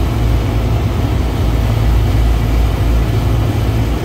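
Rooftop Hussmann Protocol refrigeration rack compressors running with a steady low hum. The rack includes a compressor diagnosed as bad, which now and then clicks and drops its current draw. In this stretch it runs evenly, with no click.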